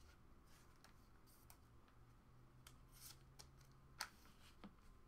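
Near silence with faint scattered rustles and clicks of trading cards being handled and sorted, the sharpest click about four seconds in.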